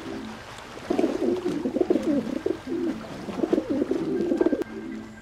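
Pigeons cooing, a loud, warbling run of coos starting about a second in and stopping near the end, with soft music notes before and after.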